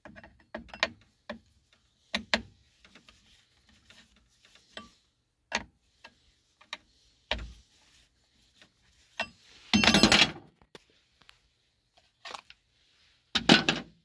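Screwdriver loosening the screws of the plastic air filter cover on a Stihl FS-111 string trimmer: a string of small clicks and scrapes. There are louder plastic clatters about ten seconds in and again near the end, as the cover comes free.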